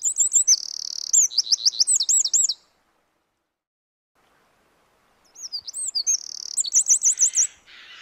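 Eurasian wren singing: two loud, high-pitched phrases of rapid notes and trills, each about two and a half seconds long, with a pause between them. A fainter scratchy sound follows near the end.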